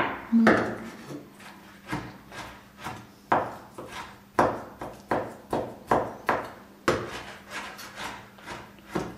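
Kitchen knife chopping fried chicken pieces finely on a wooden cutting board: a steady series of knocks of the blade on the board, about two a second.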